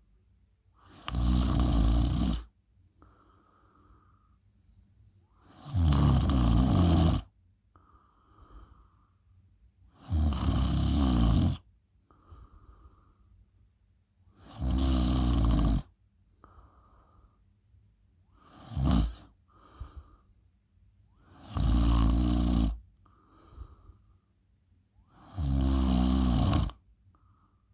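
A person snoring loudly in sleep: seven loud snores, about one every four seconds, with soft breathing between. The fifth snore is shorter than the rest.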